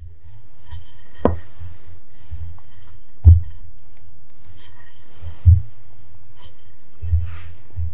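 Wooden rolling pin rolling out bread dough on a silicone baking mat: faint rubbing as it is pushed back and forth, with four soft thuds about two seconds apart as the pin bumps the mat. A steady low hum runs underneath.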